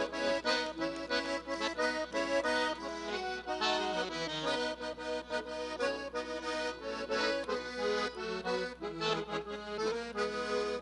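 Accordion playing an instrumental break in a gaúcho trova, with no singing: a quick melody over chords.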